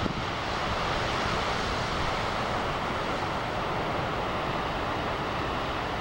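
Steady roar of large ocean waves breaking.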